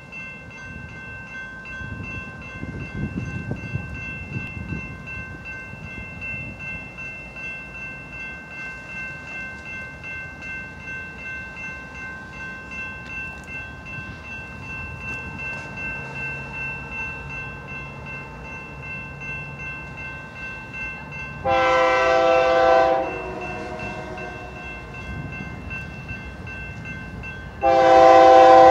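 Approaching train's multi-chime air horn sounding two long blasts about six seconds apart, the second one louder and still sounding at the end. Under it, a grade-crossing bell rings steadily, with a faint low rumble.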